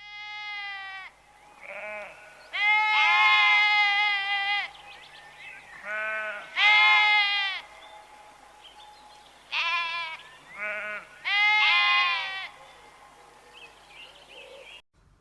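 Farm animal bleating: about eight calls in a row, some short and some drawn out and wavering, with short pauses between them; the sound cuts off abruptly near the end.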